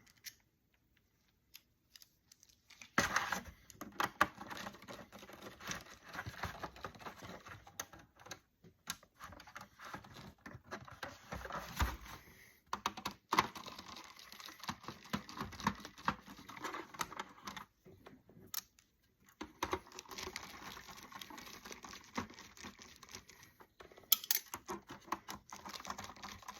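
Rapid small clicks and rattles of a plastic router housing being handled and worked open, starting about three seconds in with a short pause a little past the middle.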